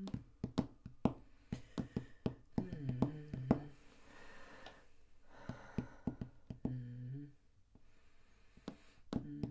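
A person humming a tune in held notes, with many sharp clicks and knocks scattered through it. A stretch of breathy hiss comes in the middle.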